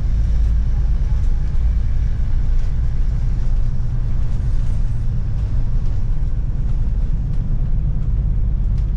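Motor vehicle engine running with a steady low rumble, heard while under way.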